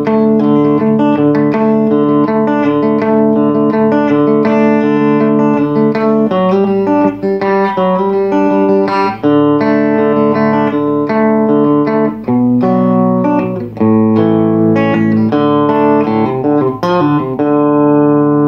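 Electric Telecaster playing a country lead line through a compressor pedal into a small Fender tube amp, the notes held out evenly. There is no reverb on it, which can sound a little sterile.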